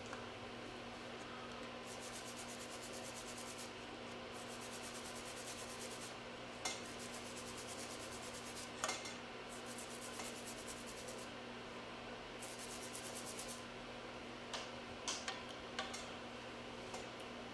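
Fingernails being filed with a nail file in runs of quick back-and-forth strokes, with a few light clicks between runs.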